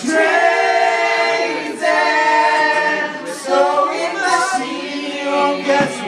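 A group of people singing together, holding long notes that shift to new pitches every second or two.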